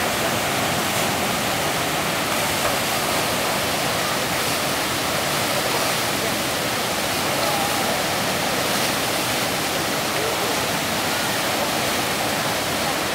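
Steady rushing of fast tidal rapids: seawater pouring through standing waves and whitewater on a strong flood tide.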